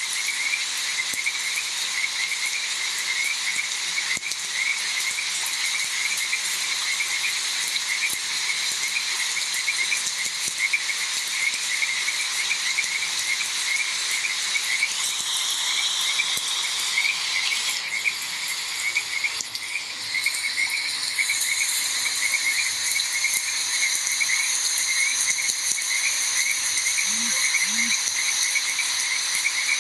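A chorus of frogs croaking over and over against a steady hiss of rain. About two-thirds of the way through, a steady high trill of insects joins in.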